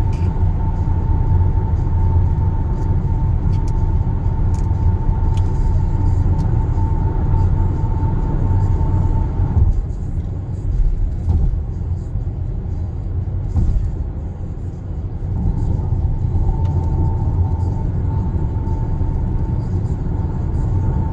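Tyre and engine rumble heard inside the cabin of a Kia Sportage (NQ5) cruising at expressway speed: a steady low drone. About ten seconds in, as the car leaves a tunnel, the sound eases a little, and a thin steady tone drops out, returning near the end.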